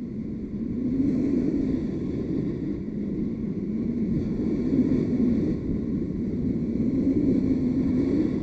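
Spinning reel being cranked to bring a hooked fish in through the surf: a low wavering hum that rises and falls, over a steady rumble of wind on the microphone.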